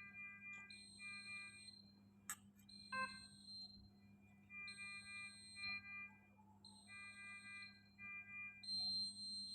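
Faint electronic beeping in a repeating pattern: a high single tone alternates with chords of several steady tones, each lasting about half a second to a second, over a low steady hum. A sharp click comes a little over two seconds in.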